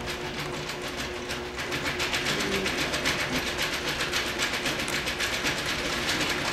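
Homemade single-axis shake table running, its motor and crank driving the platform back and forth in a rapid, even clatter with a steady motor hum, shaking a small model building. The clatter gets a little louder about two seconds in.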